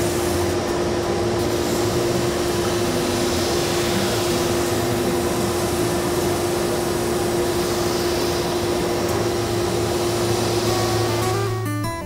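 Shop grinder fitted with a 30-grit sanding wheel, running with a steady hum as the leather side seam of a cowboy-boot upper is held against it. This is the first rough sanding pass, taking out the excess leather beyond the sew line.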